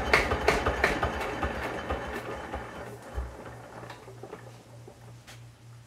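1975 SABB single-cylinder diesel being shut down: its regular firing knocks slow, space out and fade over the first two or three seconds as it coasts to a stop, with one low thump about three seconds in. A faint low pulsing hum remains afterwards.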